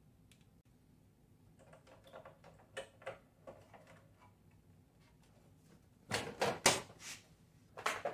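Hands moving cables and parts inside an open desktop computer case: light clicks and rustling, then four loud clattering knocks about six seconds in, and another just before the end.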